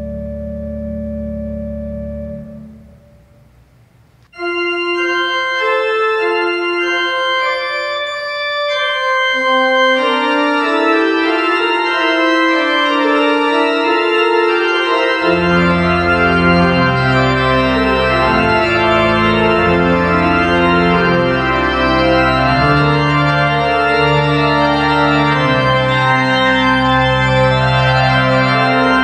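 Church organ being played: a held chord ends about two seconds in and dies away in the room's echo, then a new passage begins with a single melodic line, more voices join one after another, and low bass notes come in about halfway through.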